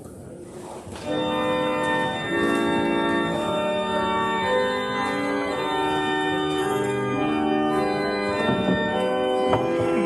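Church organ starting about a second in and playing the opening hymn in sustained, changing chords.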